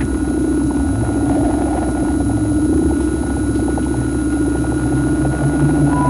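Eurorack modular synthesizer drone meant to evoke the deep ocean: a steady, dense low rumble with a rapid fluttering texture, and a thin high tone held steady above it.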